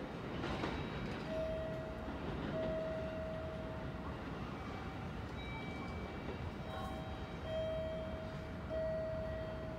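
A JR Kyushu 811 series electric train running away from the platform, heard as a steady background rumble. Over it, a station melody of held electronic notes plays, mostly on one repeated pitch with short gaps, starting about a second in.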